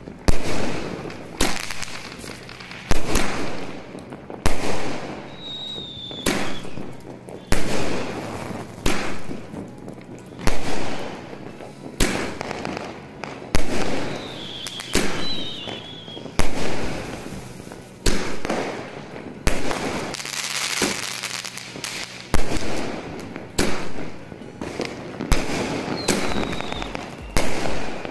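AONE Super 60 Shots multi-shot aerial firework cake firing: a steady run of sharp bangs, about one every second or so, each trailing off in crackle as the shells burst.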